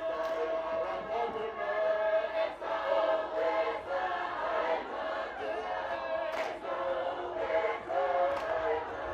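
A large group of Tongan performers singing a lakalaka together: a sustained chant of many voices, with a few short, sharp accents cutting through.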